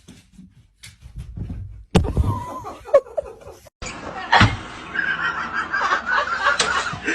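People laughing, over a run of short clips that cut abruptly from one to the next.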